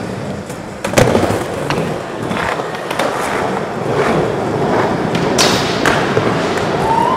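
Skateboard wheels rolling steadily across a skatepark surface, with sharp clacks of boards hitting the ground, the loudest about a second in, and a short scraping hiss about five seconds in.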